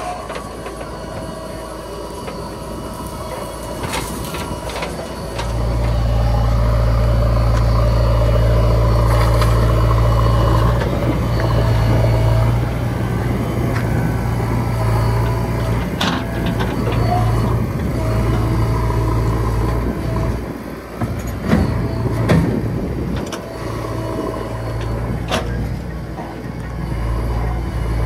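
JCB 3DX backhoe loader's diesel engine working under load as the backhoe digs, rising to a loud, steady run about five seconds in, with sharp knocks now and then.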